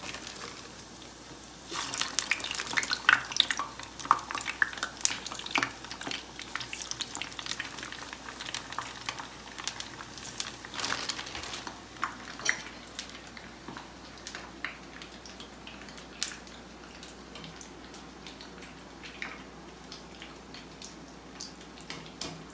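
Frozen potato smiles frying in a kadai of hot oil, crackling and sputtering. The crackle is densest for the first few seconds after they go in and then settles to a thinner, steadier sizzle.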